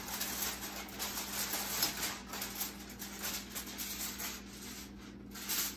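Aluminium foil crinkling and rustling as it is peeled off a roasting pan and crumpled in the hand, in a rapid run of crackles with a louder crackle near the end.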